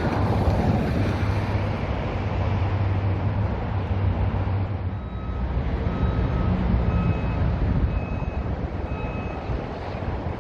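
Construction-site and street ambience at night: a steady low rumble of machinery and traffic under wind buffeting the phone's microphone. From about halfway in, a repeated electronic beep sounds about once a second, like a vehicle's reversing alarm.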